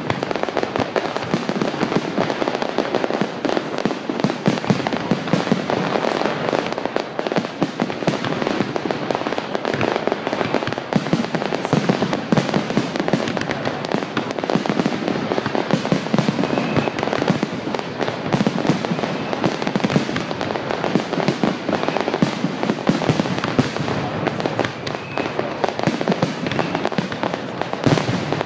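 Fireworks display going off in a dense, unbroken barrage of crackling pops and bangs.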